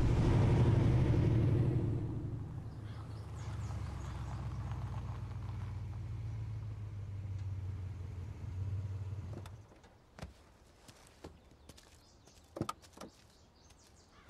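Large SUV engine running low and steady as the vehicle rolls in and stops, then shut off about nine and a half seconds in. A few sharp car-door clicks and knocks follow as the doors open.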